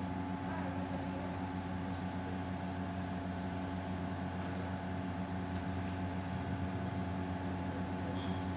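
A steady machine hum with several held tones, unchanging throughout.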